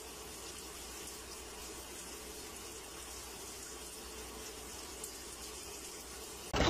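Top-loading washing machine filling: water running steadily into the drum with an even hiss.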